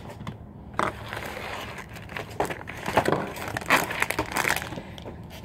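A plastic bag crinkling and rustling as it is handled, in irregular crackles.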